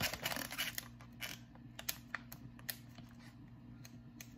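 Scattered light clicks and taps of hands handling small objects, bunched in the first second and a half and sparser after, over a low steady hum.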